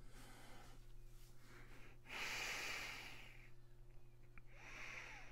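A man's breathing, faint and close to the microphone: three breaths, the longest and loudest starting about two seconds in, over a steady low electrical hum.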